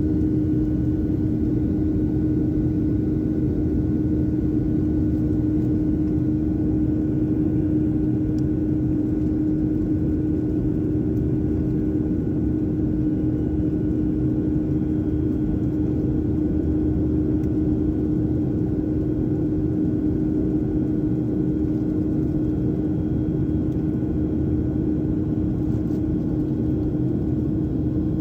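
Airliner cabin noise in flight, heard inside the cabin by a window over the engine: a steady low rumble with a strong, even hum running through it.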